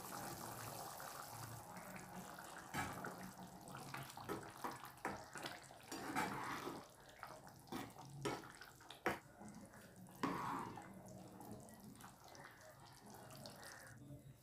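Thick chana masala gravy bubbling in a pan, then a ladle stirring it, with a run of sharp knocks and scrapes against the pan for several seconds before it settles back to a soft simmering hiss.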